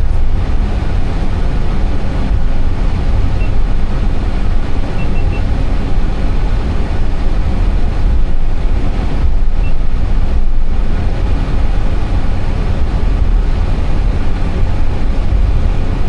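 Steady, loud cockpit rumble of an Airbus A320 taxiing on the ground.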